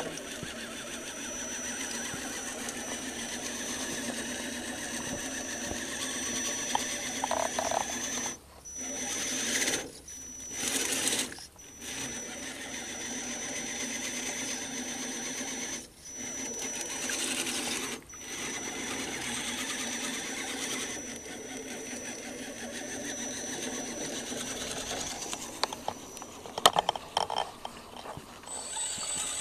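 Electric motor and geartrain of a scale RC crawler whirring with a steady high whine as it drives through mud and water, cutting out briefly several times in the middle as the throttle is let off. A few sharp clicks near the end.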